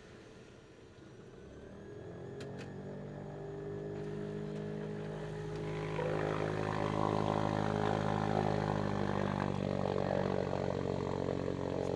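Lake Amphibian's single pusher engine and propeller, heard from inside the cabin while the plane taxis on the water. It is faint at first, grows steadily louder over the first few seconds and steps up again about halfway through, then holds a steady drone.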